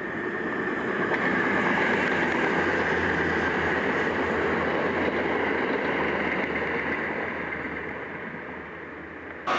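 Virgin Voyager diesel multiple unit passing at speed, a steady rush of wheels and air with a low rumble that swells over the first couple of seconds and eases off in the last few.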